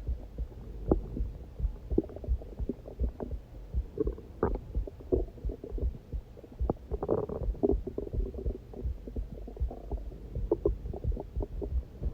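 Hungry stomach growling: irregular gurgles and bubbly rumbles, the longest about seven seconds in, over a scatter of soft, uneven knocks.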